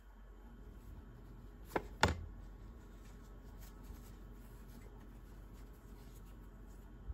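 Hands handling packaging in a boot box: two sharp clicks close together about two seconds in, then faint rustling and small ticks over a low steady hum.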